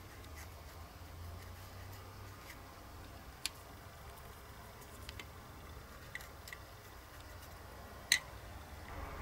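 Faint, sparse small clicks and ticks of tweezers, a thin wire bumper part and a pen-like applicator being handled over a cutting mat, the sharpest click about eight seconds in, over a faint low hum.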